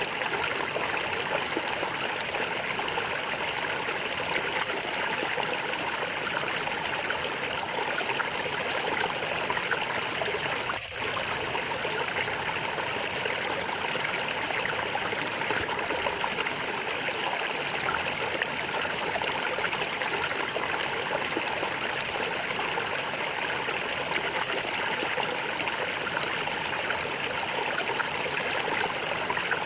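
Stream of water gurgling and trickling steadily, with a momentary dip in level about eleven seconds in.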